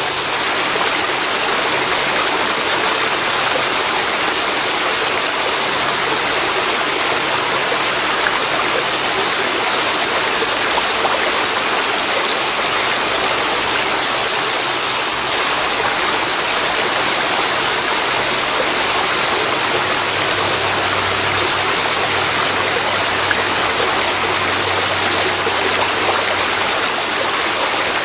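Waterfall falling into a river: a steady, loud rush of pouring water with no breaks.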